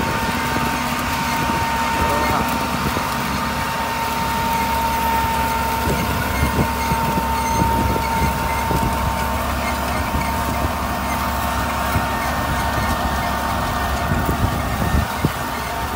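John Deere tractor engine, about 80 horsepower, running steadily under load as it pulls a six-row no-till planter.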